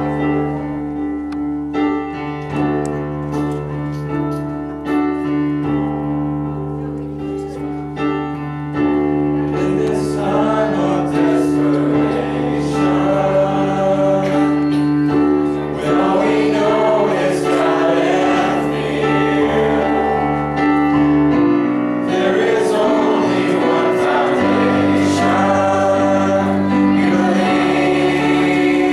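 Gospel music: a choir singing over piano and held keyboard chords, the singing growing fuller about a third of the way in.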